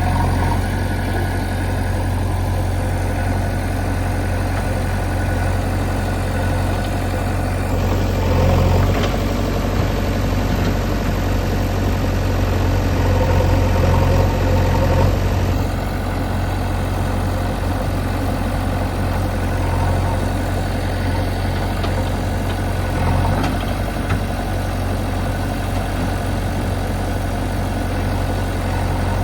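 Heavy diesel engine of a backhoe loader running steadily with a low hum. It grows louder for several seconds around the middle, then settles back.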